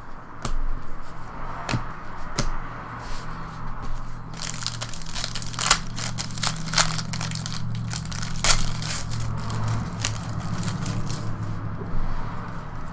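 Trading-card pack wrappers crinkling and tearing, with the rustle and snap of cards being handled; the crackling is thickest from about four to nine seconds in.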